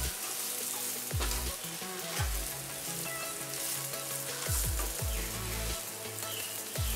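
Sliced spine gourd (kakora) frying in a little oil in a nonstick pan over a lowered gas flame, sizzling steadily while a wooden spatula stirs and tosses the pieces.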